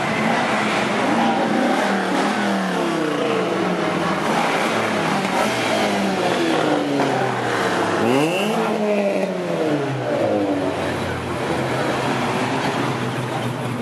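Cars driving slowly past one after another, their engines rising and falling in pitch as they accelerate, with one engine revving sharply about eight seconds in.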